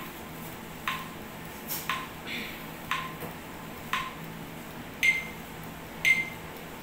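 Evenly spaced electronic ticks, about one a second, each a sharp click with a brief beep; the last two beeps are higher-pitched. A metronome-style count-in ahead of singing.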